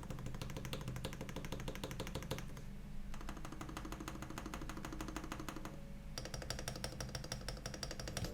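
Rapid, continuous clacking of mechanical keyboard keys pressed over and over, many clicks a second, as the keyboard's Krytox-lubed stabilizers are test-driven.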